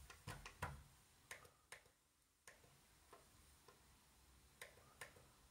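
Faint, irregular clicks of a computer mouse, about ten of them, bunched in the first two seconds and then spread out.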